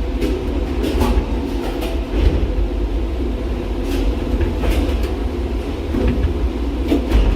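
Gateway Arch tram capsule running up its track inside the arch leg: a steady low rumble with irregular clicks and knocks from the car as it climbs.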